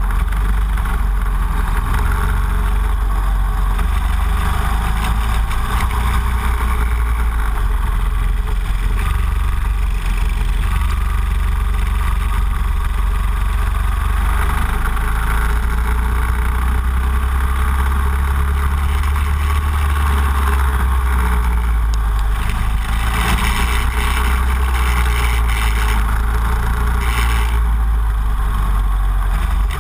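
Go-kart engine running hard at track speed, heard onboard, with a steady low rumble of wind buffeting the microphone.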